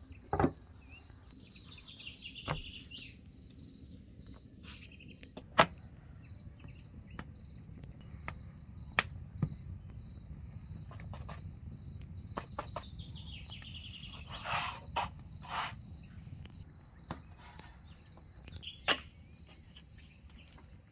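A steady high insect trill with a few bird chirps. Scattered sharp knocks and taps come over it, the loudest about five and a half seconds in, with a cluster of them near three-quarters of the way through.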